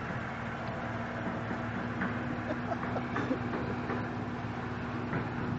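Vehicle engine running steadily while the vehicle is driven along, with a constant hum.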